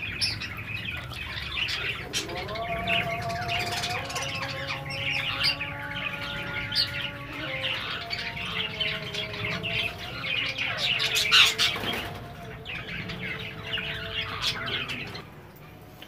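Many caged parrots and parakeets chirping and calling at once in a busy, overlapping chatter. A few long, steady notes sit underneath through most of it.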